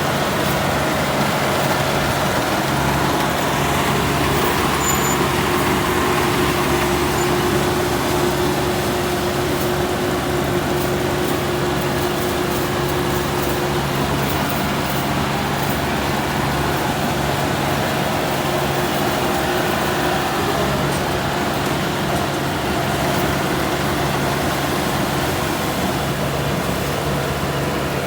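Combine harvester running steadily in a rice field: a constant engine drone with an unchanging low tone.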